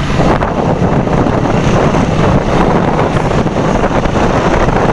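Small motorcycle engine running steadily while riding, with wind rushing over the microphone.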